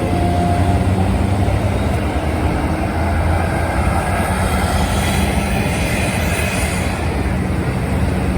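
Passing heavy road traffic: a steady rumble of large engines and tyre noise, with no horn sounding.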